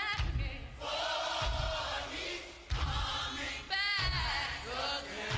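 Choir singing a gospel song over a low beat that falls about every second and a half.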